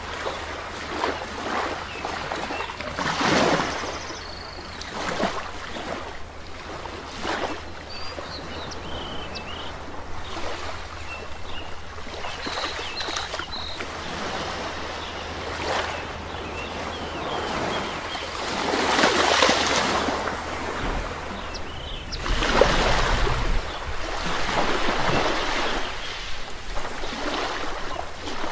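Sea waves washing onto a shore, a few louder surges rushing in and drawing back. Short, high bird chirps sound now and then in the first half.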